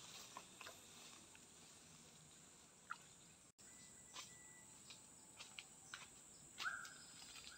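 Quiet forest ambience: a faint steady high insect hiss with scattered soft crackles of footsteps in dry leaves and twigs, and a few short chirps near the end.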